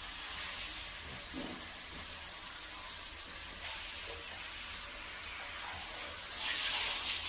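Shower water spraying onto a tiled floor: a steady hiss that swells louder near the end.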